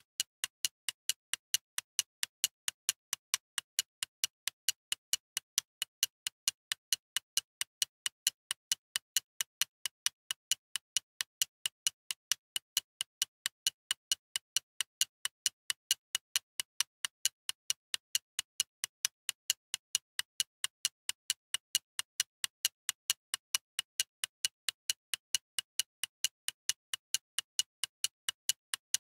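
Steady, evenly spaced ticking, several sharp clicks a second, like a clock's tick.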